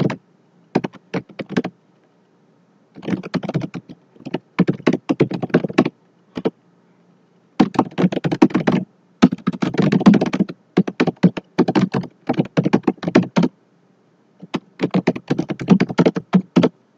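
Computer keyboard typing: rapid key clicks in several bursts, separated by short pauses.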